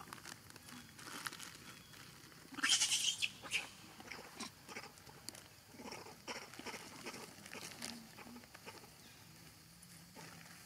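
Young macaques eating red dragon fruit, with small wet smacks and clicks of chewing and handling the fruit, and a short high cry from one of the monkeys about two and a half seconds in.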